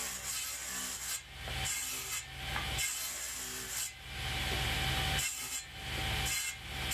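Table saw running, its circular blade ripping a wooden board in several passes: the cutting noise rises and breaks off a few times over a steady motor hum.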